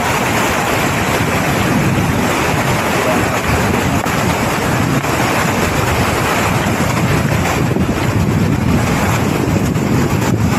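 Steady rushing noise of a fast-flowing river, mixed with wind buffeting the microphone.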